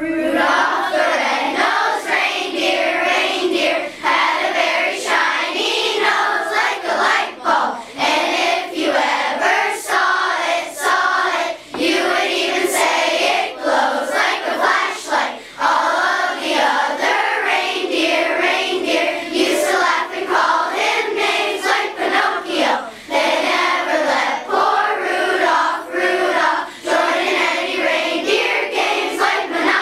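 A large group of children singing a song together as a chorus.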